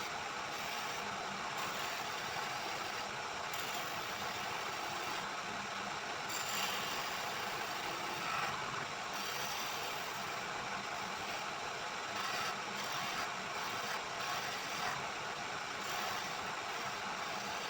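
Wood lathe running, with a steady hiss and no clear rhythm.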